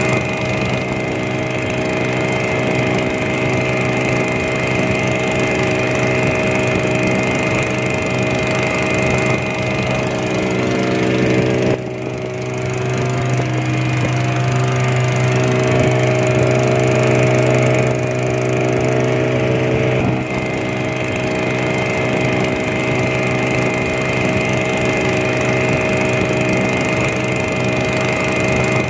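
Small ketinting longtail boat engine running steadily, with a brief dip in its sound about twelve seconds in.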